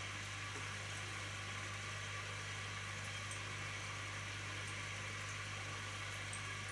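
Steady low electrical hum with a constant hiss over it, unchanging throughout: background equipment or room noise.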